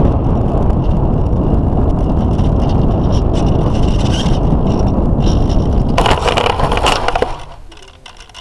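Model aeroplane rolling across a grass field, heard from on board as a loud, steady rumble of wind and bumping wheels. About six seconds in comes a louder scraping rustle of grass for about a second, then the plane comes to a stop.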